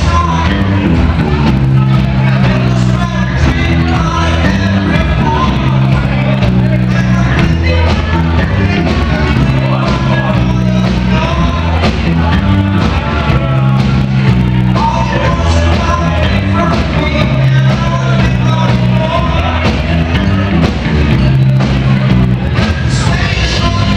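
Loud rock music with singing and a steady, repeating bass line.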